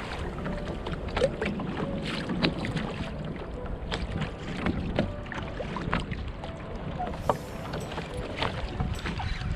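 Choppy sea water slapping and splashing irregularly against a kayak hull, over a low rumble of wind on the microphone.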